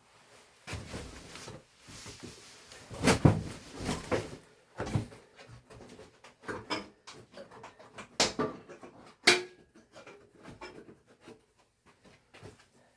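Hands working on HVAC return ductwork: irregular rustling and scraping with several sharp knocks and clunks, the loudest about three seconds in and again around eight and nine seconds.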